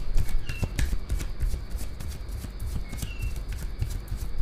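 A deck of tarot cards being shuffled by hand: a quick, uneven run of card flicks and taps.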